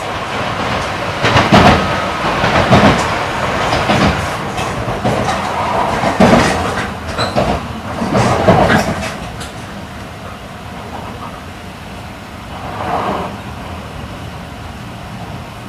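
Running noise of an E8 series Shinkansen train, heard from inside the passenger car. A run of loud, irregular jolts and clatters fills the first half or so, then the noise settles to a steadier, quieter rumble.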